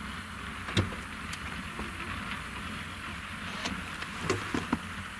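ROPA Maus 5 sugar beet loader running steadily as it picks up and conveys beets, with a few sharp knocks, one about a second in and several near the end.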